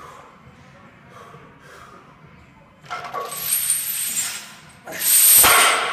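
One heavy stiff-legged deadlift rep with chains hung on the barbell: a loud rasping burst as the bar comes up, about three seconds in, and a louder one as it is lowered back toward the blocks near the end.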